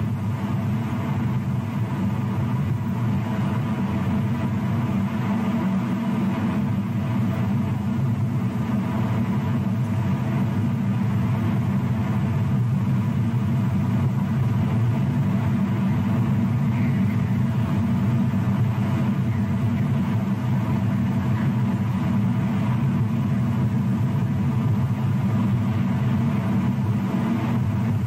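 A steady low hum and rumble that does not change.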